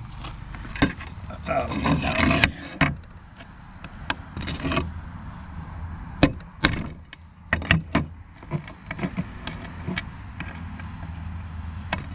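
Hammer striking a steel punch to drive a pin out of a roller chain link: more than a dozen sharp metallic taps at irregular spacing, coming faster in the second half. A steady low hum runs underneath.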